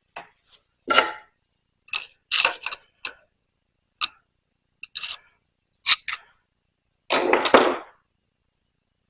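Metal clinks and knocks as the parts of a porta power hydraulic ram and tools are handled: about ten short, separate knocks, then a longer rattling clatter about seven seconds in.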